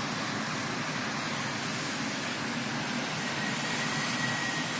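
Steady wash of distant road traffic, with a faint thin high tone joining about three seconds in.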